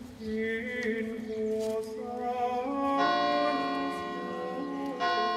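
Slow, soft music of long held notes moving step by step; a fuller chord comes in about three seconds in.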